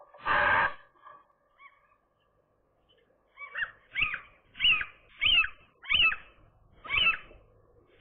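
A gull calling repeatedly, about seven rising-and-falling calls in an even series starting about three seconds in. Near the start there is one short, harsh, noisy burst.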